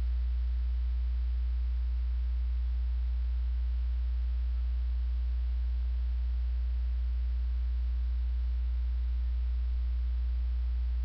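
A steady low electrical hum with faint hiss and nothing else.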